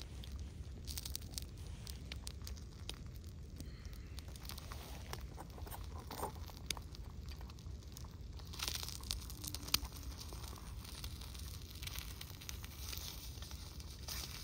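Wind rumbling on the microphone, with scattered light crackles and scrapes from eggs being worked in a small pan over an alcohol stove; the clicks come thickest about halfway through.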